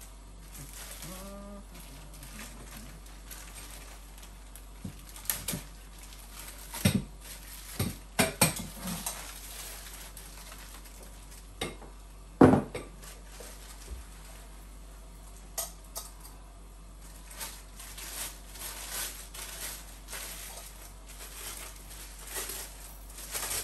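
Metal parts of a Jolly Jumper baby jumper, its tube frame, spring and chain, clinking and knocking as they are handled and fitted together. Scattered sharp clinks, the loudest about halfway through.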